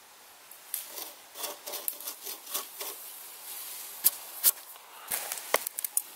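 Pencil scratching on the hewn face of a red alder log in a run of short strokes, followed by two sharp clicks about four seconds in and a few more near the end as the steel combination square and pencil are handled against the wood.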